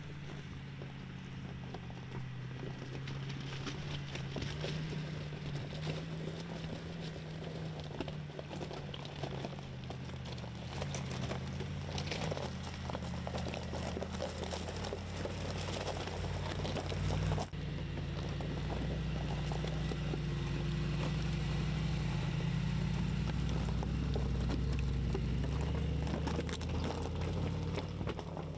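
Mercedes-AMG G63's 4.0-litre biturbo V8 running at low revs, with the tyres crunching and crackling over a loose gravel track. About two-thirds of the way through, the sound cuts abruptly and the engine's low hum comes in louder.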